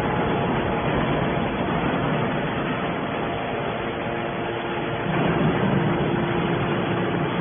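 Hydraulic metal scrap baler running: a steady mechanical drone with faint steady tones from its motor and hydraulic pump, a little louder about five seconds in.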